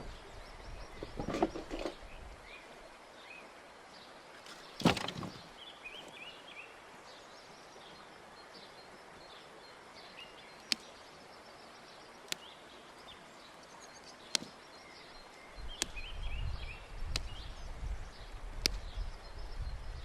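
Outdoor ambience with small birds chirping. A loud knock about five seconds in, then single sharp clicks every second or two, with a low rumbling noise in the last few seconds.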